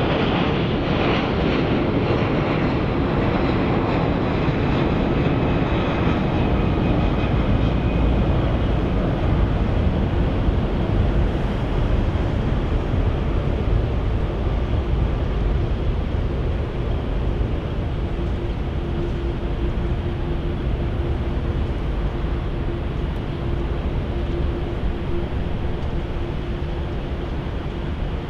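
Jet airliner's engines running as it moves along the runway or passes close by: a loud, steady rush, with a steady hum joining it for several seconds past the midpoint, tapering off slightly near the end.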